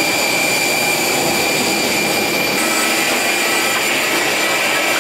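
Steady loud whine and rush of jet aircraft on the airport apron, with several high steady tones over it; one lower tone joins about halfway through.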